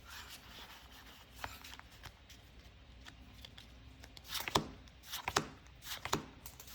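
Trading cards being handled: soft scattered clicks, taps and rustles as cards are flipped and set down, busier about four seconds in.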